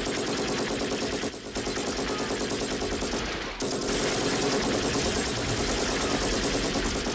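Rapid automatic gunfire, a dense continuous rattle of shots, with brief breaks about a second and a half and three and a half seconds in.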